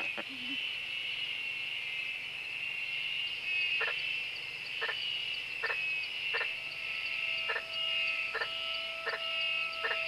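Night rainforest chorus: a steady high-pitched trill of insects, with a frog calling in short notes a little more than once a second from about four seconds in. A steady low tone joins about seven seconds in.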